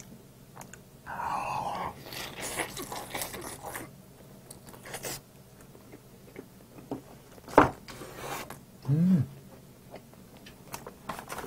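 Close-up chewing and biting of a barbecued chicken drumstick, with wet, crackly mouth noises and an occasional sharp click. A short hummed 'mm' comes about nine seconds in.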